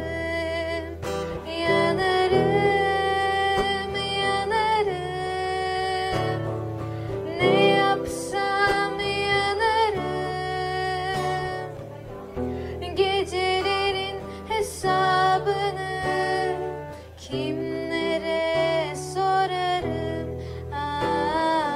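A girl singing a song live, accompanied by an acoustic guitar.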